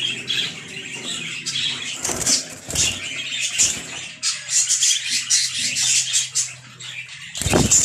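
Budgerigars chattering in quick, rapid chirps, with wings flapping at the start and a few louder thumps, the loudest near the end.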